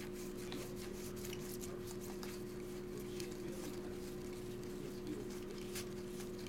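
Baseball trading cards being flipped through and sorted by hand on a tabletop: faint scattered clicks and rubs of card stock over a steady low hum.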